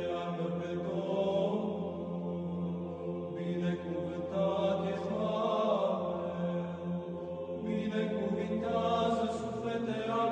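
Orthodox church chant: voices singing a slow melody in long-held notes over a steady low drone note, which moves to a new pitch near the end.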